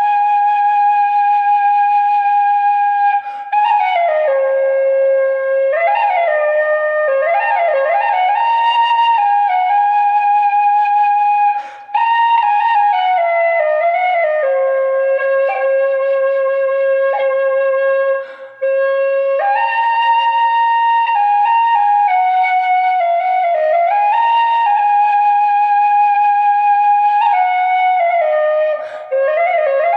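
Irish flute playing a slow solo melody of long held notes with quick ornamented turns between them. Short breaks for breath come about 3.5, 12, 18.5 and 29 seconds in.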